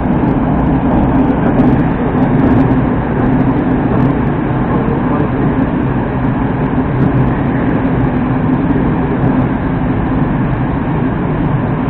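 A Moskva-2019 Moscow Metro train running at speed through a tunnel, heard from inside the car as a steady running rumble that holds even throughout.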